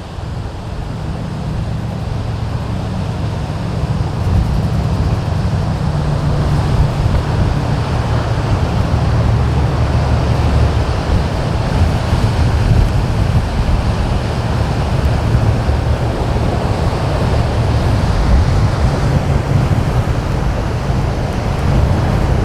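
Strong wind buffeting the microphone as a steady low rumble, over the rush of surf from big waves. It grows louder over the first few seconds, then holds steady.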